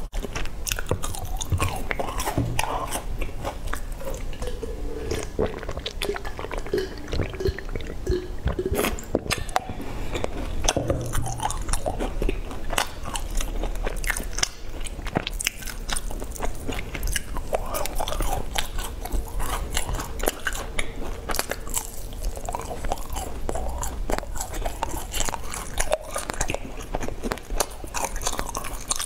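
Continuous crunching and chewing of dry, sesame-crusted brown biscuits, mixed with crackling as pieces are broken apart by hand.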